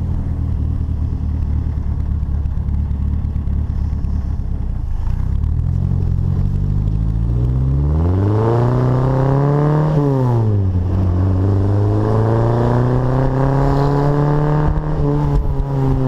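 Bugeye Sprite's 1275 A-series four-cylinder engine with a performance exhaust, pulling away on a test drive. It runs steady for about five seconds, then the revs climb, drop sharply at a gear change about ten seconds in, and climb again. This is a check on whether an intermittent misfire has been cured by a new distributor, cap, rotor, wires and coil, and the driver judges it 'so far, so good'.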